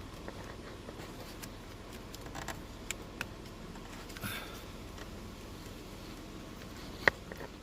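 Plastic electrical connector on a turn signal switch being worked loose by hand: scattered light clicks and scrapes, then one sharp click near the end.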